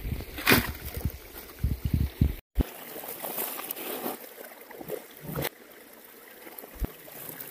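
Shallow creek water sloshing and running around a shovel and wading boots, with heavy low thumping and a scrape early on. After a short break, a quieter steady stream babble with a couple of faint knocks as rocks are handled in a classifier sieve on a bucket.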